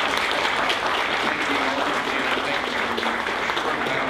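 An audience applauding: sustained, steady clapping from many hands.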